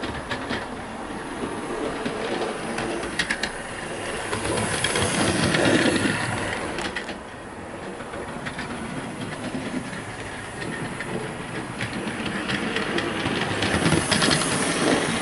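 An OO-gauge Oxford Rail GWR Dean Goods model locomotive and tender running on the layout track: a steady whirr of the motor and wheels, with a few sharp clicks over the rail joints. It grows loudest about five seconds in, drops away, then builds again near the end as the model comes close.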